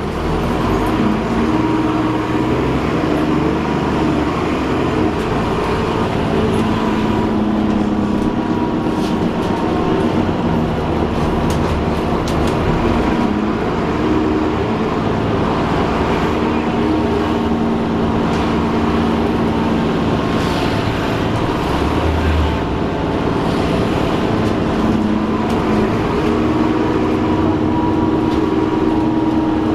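Alexander Dennis Enviro400 double-decker bus heard from on board while running, with a steady whirring whine from the drivetrain that rises and falls in pitch.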